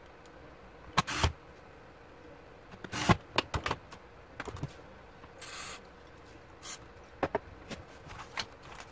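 Scattered light clicks and knocks from laptop parts being handled on a workbench: plastic casing, keyboard and tools being set down. There is a short rustle about halfway through.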